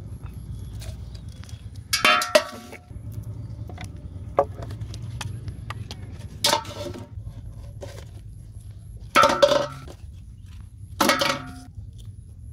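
Plastic bottles knocking against a large aluminium pot: a handful of separate clattering knocks a couple of seconds apart, each with a short metallic ring.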